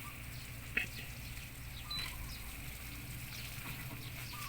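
Quiet outdoor background: a steady low hum with a few short, faint bird chirps.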